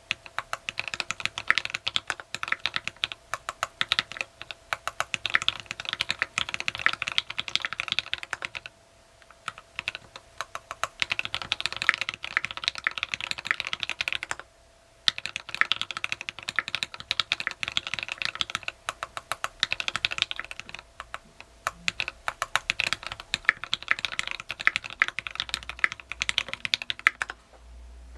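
TX66 mechanical keyboard with lubed, filmed Tealios V2 linear switches, a brass plate and PPS keycaps, being typed on quickly in a dense stream of keystrokes. The typing pauses briefly twice and stops shortly before the end.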